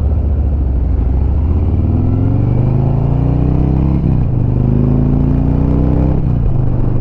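Harley-Davidson V-twin motorcycle accelerating through the gears. The engine note climbs, drops at a shift about four seconds in, climbs again and falls off again about six seconds in.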